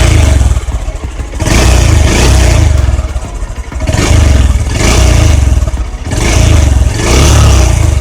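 Honda X Blade BS6's single-cylinder engine revved through its dual-barrel exhaust in repeated throttle blips, each swelling for about a second and a half and dropping back to idle, roughly every two and a half seconds: one fading as the sound begins, then three more.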